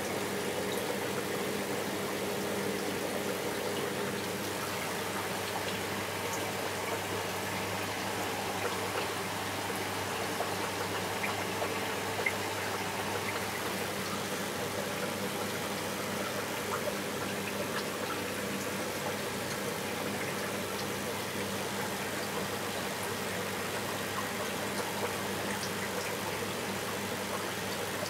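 Steady hum and water rush of a reef aquarium's circulation pumps, with a few faint ticks.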